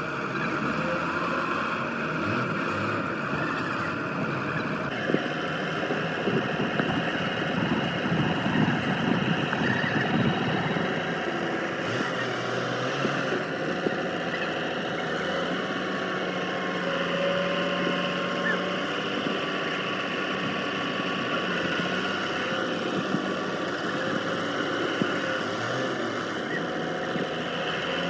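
A machine running steadily, with several steady tones; the sound changes abruptly about five seconds in and again further on.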